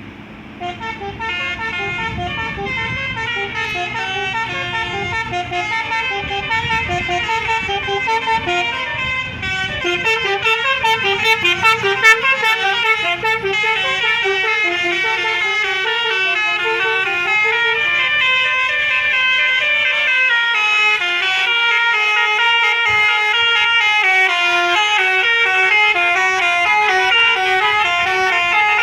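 Indonesian bus 'telolet basuri' multi-tone musical horn playing a fast melody of quickly stepping notes. A low engine rumble lies under it for the first several seconds, and the horn gets louder about ten seconds in.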